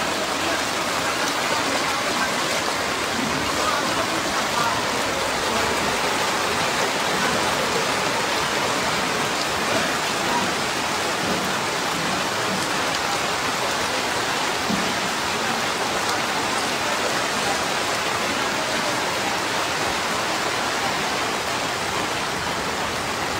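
Steady rain falling on floodwater, an even hiss with no let-up.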